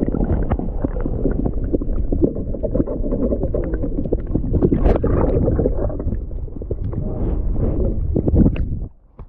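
Muffled rushing and gurgling water with many scattered clicks, as heard through a camera held underwater. It cuts off suddenly near the end, as the camera comes out of the water.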